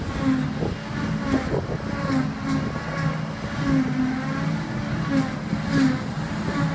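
Krone BiG X 700 self-propelled forage harvester running under load while chopping silage and blowing it into a truck alongside, a steady heavy engine drone whose pitch wavers slightly, mixed with the truck's engine.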